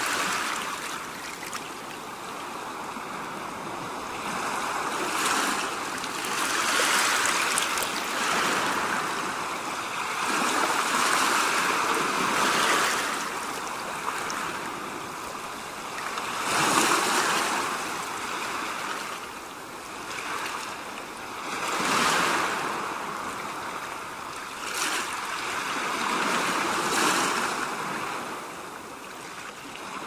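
Sea waves breaking on the shore, the surf swelling and falling back every few seconds.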